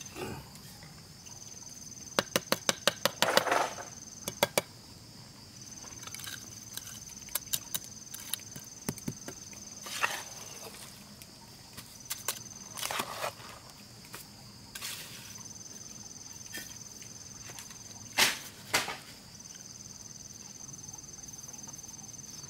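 Insects trilling in a steady high tone that comes in spells of a few seconds with short breaks. Sharp knocks and taps come and go, with a quick run of taps about two seconds in and single knocks later.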